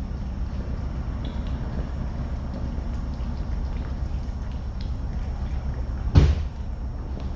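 Steady low rumble of a heavy engine running, with one loud thud about six seconds in.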